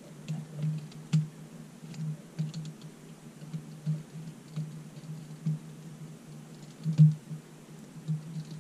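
Small Phillips screwdriver tightening screws into a plastic mini quadcopter's frame, with irregular light clicks and taps from the driver and the handled drone. One louder knock comes about seven seconds in.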